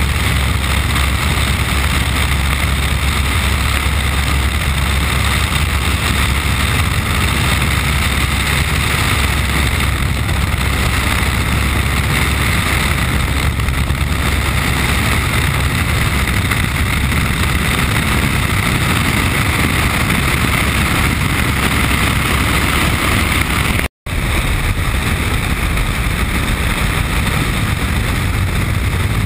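Piper Cub's engine and propeller running steadily in flight, heard from inside the cabin. The sound breaks off for a moment near the end.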